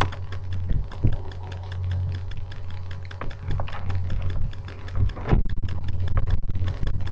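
Typing on a computer keyboard: a run of quick key clicks that comes thicker in the last two seconds, over a steady low hum.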